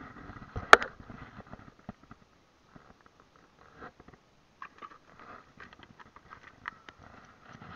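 Scattered light clicks and ticks of a spinning rod and reel being handled in a small boat, with one sharp knock just under a second in.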